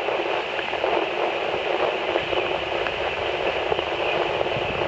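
Steady hiss of rain falling on the lake, even and unbroken.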